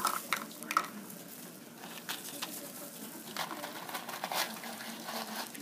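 Dry Chex Mix pieces being poured and handled into a measuring cup: light pattering and rustling with a few sharp clicks, starting and stopping.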